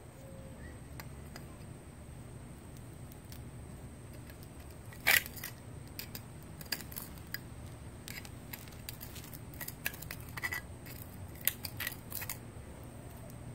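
Metal hand weeder scraping and clicking against brick pavers as it digs weeds out of the joints: a loud click about five seconds in, then a run of quicker scrapes and clicks, over a steady low hum.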